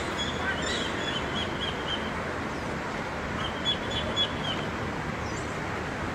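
Small birds chirping over a steady outdoor background hiss: two runs of short, high, quickly repeated chirps, one at the start and one a little past the middle, and a single short whistle near the end.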